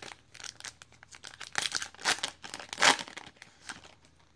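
Foil wrapper of a Panini Optic basketball card pack torn open and crinkled by hand: an irregular run of sharp crackling rustles, loudest near three seconds in.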